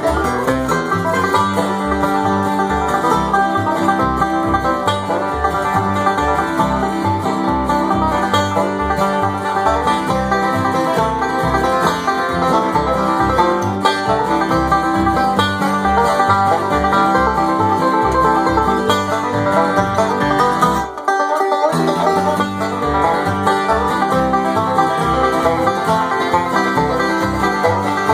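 Bluegrass band playing an up-tempo instrumental: banjo rolls over guitar, with bass notes pulsing steadily on the beat. The bass and low end drop out for a moment about three-quarters of the way through, then come back.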